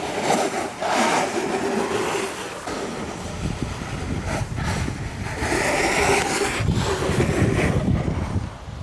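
Wind buffeting the microphone over rushing water, in gusts, with a low rumbling that grows stronger after the first few seconds.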